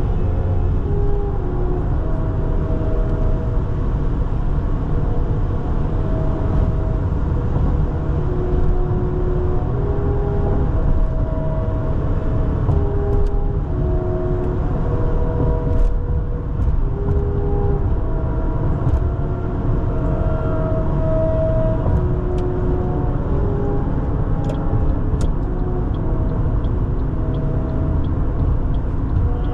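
Steady road and engine rumble of a car driving, with quiet music playing over it: a melody of held notes that changes pitch every second or so.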